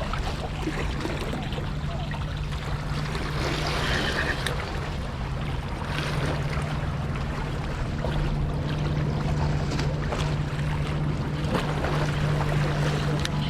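Steady low engine hum, holding one even pitch throughout, over a haze of wind and water noise, with a brief faint high chirp about four seconds in.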